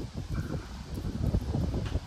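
Wind buffeting the microphone in uneven, gusty low rumbles, with a brief click near the end.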